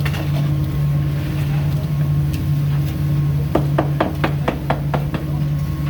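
Concrete pump truck's diesel engine running at a steady pitch. About three and a half seconds in comes a quick run of about seven sharp knocks.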